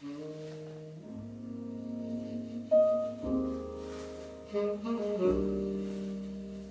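Instrumental music from a CD played back at low volume through a Sansui AU-777A amplifier and loudspeakers. It starts at once, with slow, held notes and chords that change every second or so.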